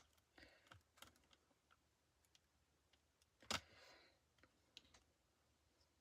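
Faint clicks and taps of small plastic pieces being handled as miniature figures are fitted into a plastic capsule ball, with one sharper click and a short scrape about three and a half seconds in.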